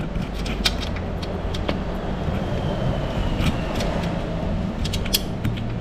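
Scattered clicks and small metal knocks as the battery cable is fitted onto the alternator's terminal by hand, over a steady low rumble.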